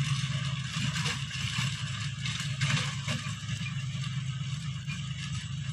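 John Deere tractor engine running steadily under load while its rear-mounted rotary tiller churns soil, giving a constant low drone over a steady scraping, rattling noise.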